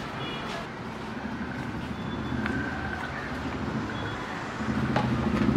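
Steady street traffic noise with a few sharp knife strokes against a cutting board as bell peppers are sliced. A motor vehicle's engine grows louder near the end.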